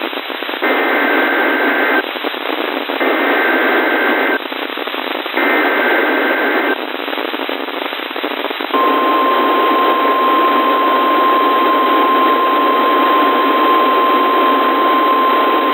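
NOAA Weather Radio alert signal heard through a receiver with static hiss. First come three bursts of SAME header data, each a harsh warbling screech about a second and a half long with short gaps between. Then, about 9 s in, the steady 1050-hertz warning alarm tone begins and holds. Together they mark the start of a new warning-level alert.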